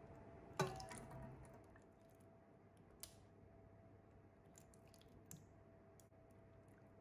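A metal kitchen utensil knocks once against metal cookware about half a second in, with a short ring that fades over about a second. A few faint small clicks follow, over a faint steady hum.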